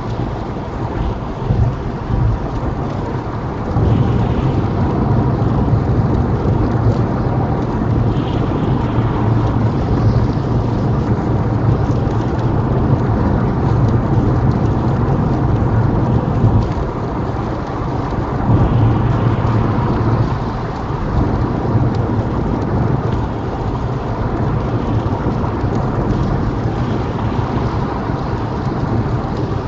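Small car driving on a wet motorway in rain: a steady low road and tyre rumble with the hiss of rain on the windscreen.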